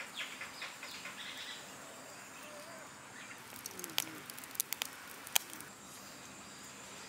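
Faint birds chirping, with a few sharp clicks between about four and five and a half seconds in.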